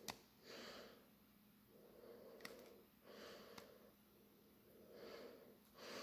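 Near silence with soft nasal breathing, four breaths, and a few faint small clicks.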